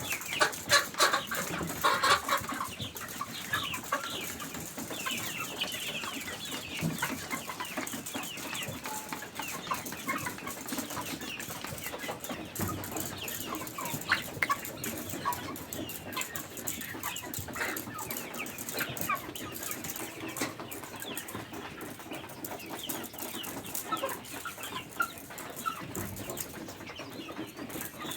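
A flock of chickens calling, many short chirps and clucks overlapping continuously, with frequent small clicks among them.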